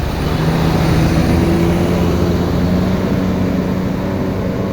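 Large bus's engine running loud as the bus pulls away, its droning note climbing slowly as it gathers speed.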